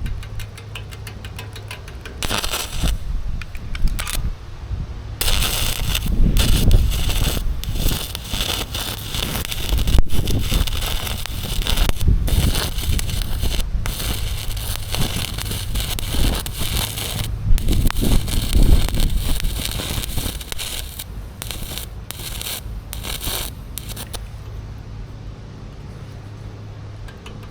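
Arc welding crackling in several runs that start and stop, over a steady low hum.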